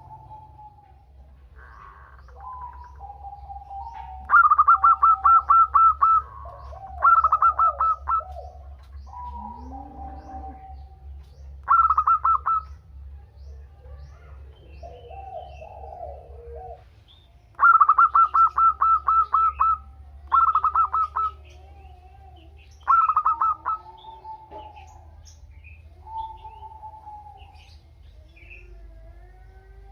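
A group of female zebra doves calling: six loud, fast rattling trills of one to two seconds each, mixed with softer falling coos from several birds.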